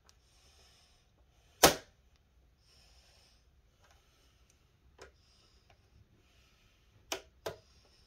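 Plastic clips of an Xbox Series X casing snapping as the panel is pried loose: one loud sharp snap about a second and a half in, a smaller click around five seconds, and two quick clicks near the end.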